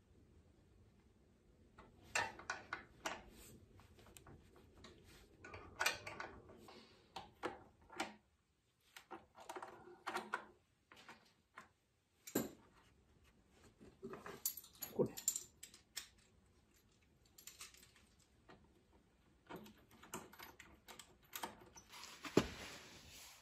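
Scattered light clicks and metallic clinks of hand tools and parts as the air cleaner is taken off a wing mower's small petrol engine, with quiet pauses between.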